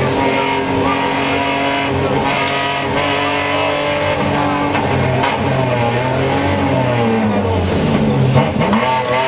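BMW E30 rally car's engine heard from inside the cabin, running hard at steady revs, then its pitch dips and climbs again several times in the second half as the driver works the throttle and gears.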